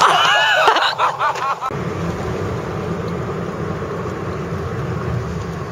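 Steady low rumble of road and wind noise heard from inside a moving car. In the first second and a half, loud high wavering squeals that cut off abruptly.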